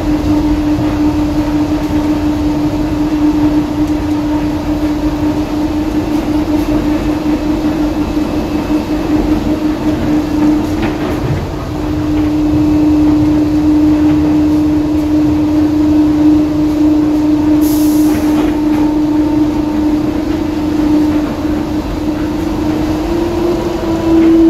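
DFW Skylink people-mover train running along its elevated guideway: a steady whine over rolling noise. It dips briefly about halfway through and rises slightly in pitch near the end.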